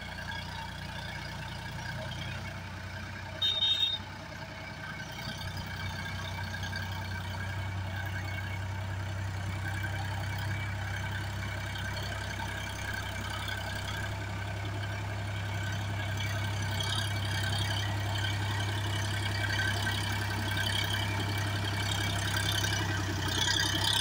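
Massey Ferguson 7250 DI tractor's diesel engine running steadily under load while driving a rotavator through the soil, growing louder as the tractor comes closer. A short high beep sounds once about three and a half seconds in.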